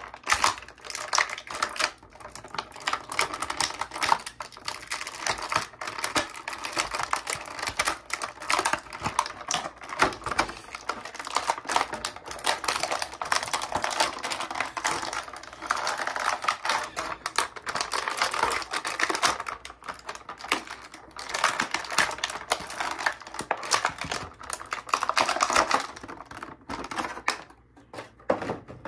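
Clear plastic packaging crinkling and crackling in a rapid, irregular run of clicks as it is handled and pulled away from an action figure. It stops abruptly near the end.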